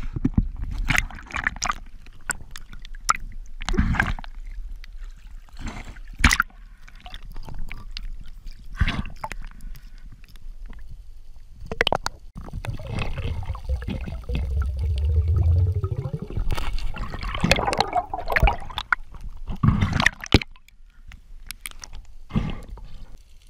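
Seawater splashing, sloshing and gurgling around a diver's camera as it moves between the surface and underwater, with many sharp knocks and splashes. A low rumbling stretch comes about two thirds of the way through.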